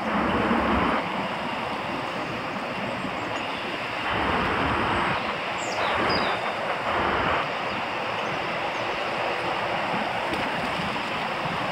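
Wind buffeting the microphone, a steady rushing noise with louder rumbling gusts at the start and again from about four to seven and a half seconds in.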